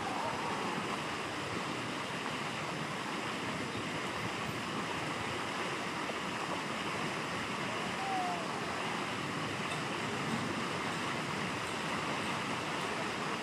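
Steady outdoor rushing noise, like running water, with no distinct events; a faint short squeak about eight seconds in.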